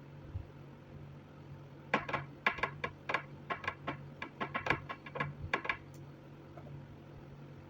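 A quick, irregular run of about twenty light, sharp clicks lasting about four seconds, over a steady low hum.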